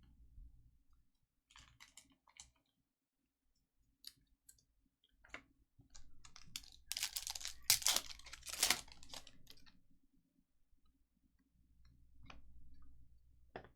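Trading-card pack wrappers crinkling and cards being handled, with scattered small clicks and a louder stretch of rustling and tearing about halfway through.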